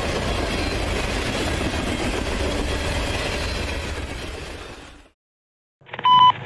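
Freight train cars rolling past at speed, a steady rumble and rattle of wheels on rail that fades out about five seconds in. After a brief silence, a short radio beep comes near the end.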